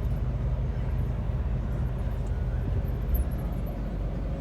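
Truck cab on the move: steady low engine and road rumble inside the cabin, with a slight bump about three seconds in.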